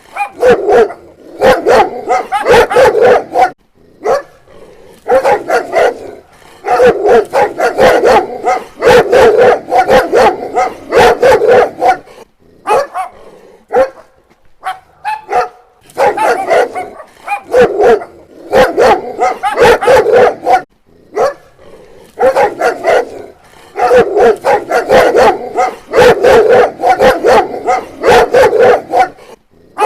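Dog barking in rapid volleys, each run of barks lasting two or three seconds with short pauses between.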